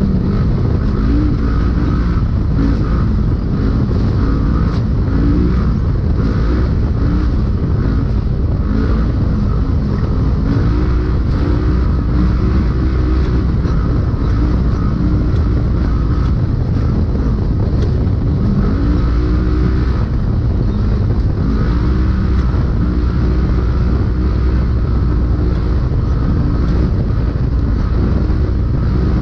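Polaris RZR UTV engine running hard under race load, its pitch climbing and levelling off again and again as the throttle is worked, over a heavy low rumble and scattered knocks and rattles, heard from inside the cab.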